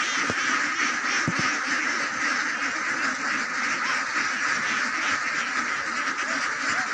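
A large flock of domestic ducks quacking all at once, many overlapping calls blending into a steady, unbroken chorus.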